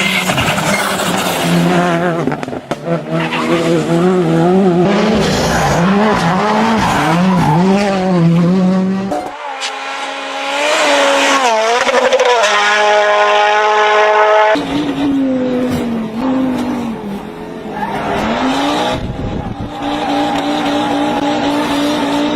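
Rally car engines at full throttle, the revs climbing and dropping again and again with each gear change, in several short clips one after another.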